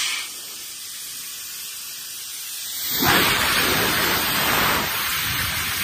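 Steady hissing rush of water and air at a tractor tyre's valve as a pipe fills the tyre with water ballast, growing louder about three seconds in.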